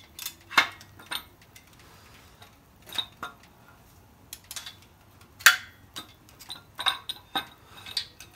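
Irregular sharp metal clinks and knocks from a camshaft being worked out of a Ford 5.0L engine block with torn-up cam bearings; the loudest knock comes about five and a half seconds in, after a quieter stretch.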